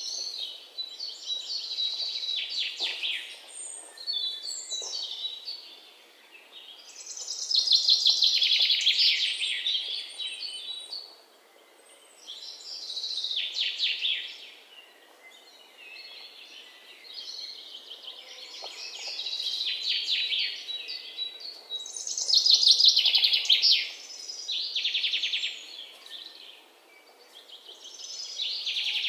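A songbird singing: high-pitched phrases of rapid trills and warbles, each lasting a few seconds and repeated about every five seconds.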